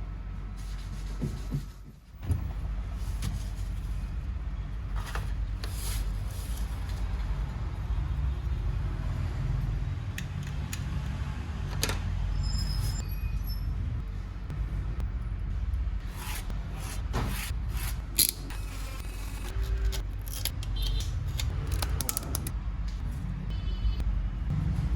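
A small electric motor running with a steady low hum, with scattered clicks and taps over it; the sound drops out briefly about two seconds in.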